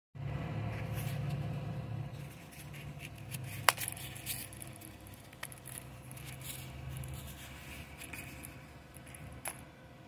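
Snap fastener on a nylon knife sheath popping open with one sharp click a few seconds in, followed by rustling of the nylon and a few lighter clicks as a Buck 110 folding knife is drawn out, over a low steady rumble.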